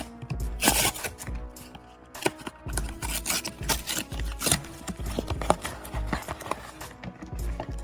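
A Magic: The Gathering booster pack being opened and its cards handled: crinkling, rustling wrapper and card noises in quick irregular bursts, over background music with a steady beat.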